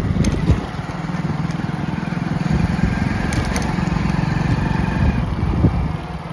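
Motorcycle engine running steadily at low speed, heard from the rider's seat.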